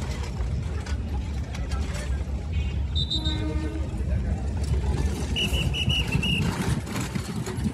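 Commuter train running with a steady low rumble. A short horn toot sounds about three seconds in, and four quick high-pitched toots follow about two seconds later.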